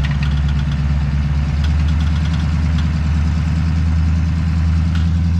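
Truck engines running steadily under load while a wrecker winches a stuck pickup out of sand, as a low even drone. A few faint clicks sound over it in the first few seconds.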